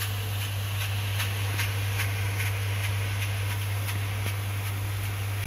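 Water jets spraying from a spray bar onto the rotating stainless steel mesh drum of a homemade drum filter: an even hiss of spray, over a steady low hum and a regular ticking about two times a second.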